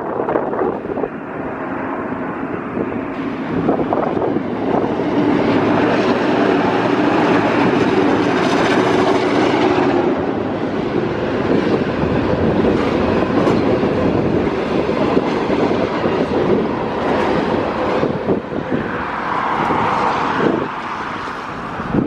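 Train passing close by, loud and steady, with steel wheels clicking over the rail joints.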